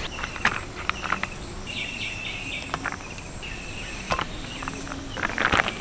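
Rural outdoor ambience: insects trilling steadily and birds chirping, with a few faint ticks and a short cluster of sharp sounds near the end.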